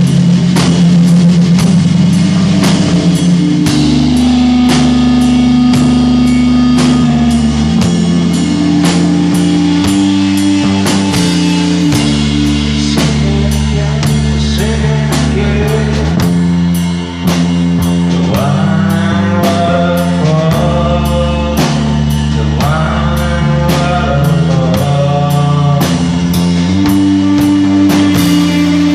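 Live stoner rock band playing: distorted guitar and bass holding heavy, sustained chords over steady drums and cymbals, with a wavering lead melody that bends in pitch coming in about eighteen seconds in.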